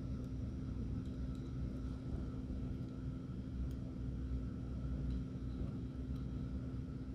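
Steady low background hum with a constant tone, broken by a few faint light clicks from small balisong parts being handled during assembly.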